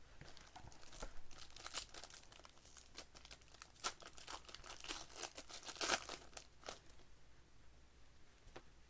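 Plastic wrapping of Panini Select basketball card packs crinkling and tearing as they are opened by hand, in irregular crackles that are busiest in the middle and thin out near the end.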